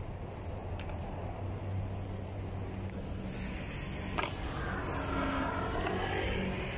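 Steady low rumble of road traffic with a BMX bike rolling on concrete; a sharp knock about four seconds in, then a rising and falling whine.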